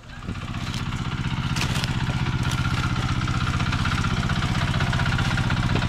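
Engine-driven abaca fibre stripping machine running with a steady, evenly pulsing drone. It grows louder over the first two seconds, and a fainter whine rides above it.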